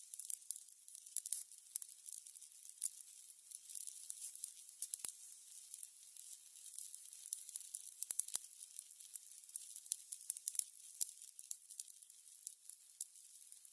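Burning candles crackling: a steady stream of small, high crackles and ticks, with a few sharper pops about five and eight seconds in.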